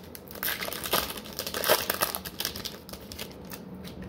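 A trading card pack's wrapper being torn open and crumpled: a dense crackling, loudest around a second and a half in, easing off after about three seconds.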